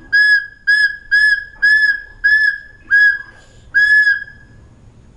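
Short high whistle toots, about eight in a row at a steady, even pace, each on the same pitch, stopping about four seconds in.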